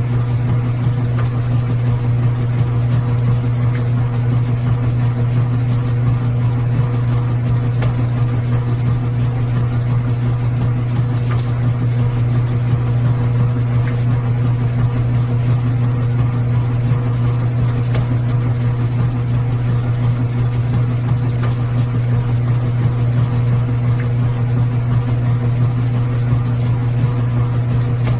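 Washing machine running with a steady low hum and a faint hiss, with a few faint ticks.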